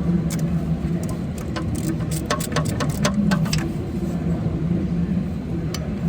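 A run of quick metallic clicks from a ratchet wrench being worked on a bolt, over a steady low hum.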